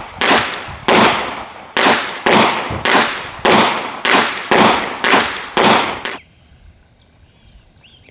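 Handgun shots fired at an outdoor range: about ten sharp shots, roughly two a second, each with a short fading echo, stopping about six seconds in.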